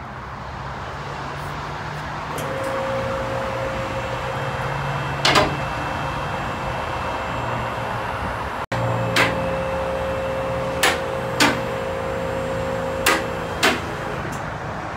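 Two-post car lift's electric hydraulic pump motor running with a steady hum as it raises a car, starting about two seconds in and stopping near the end. Six sharp metallic clacks come during the climb, typical of the lift's safety locks catching on the posts.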